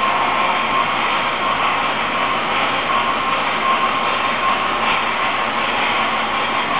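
HO scale model freight train rolling across a trestle bridge: a steady rolling noise of the wheels on the track, with a faint steady whine.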